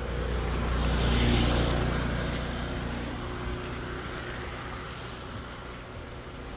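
A road vehicle passing by, its engine and tyre noise swelling about a second in and then slowly fading away.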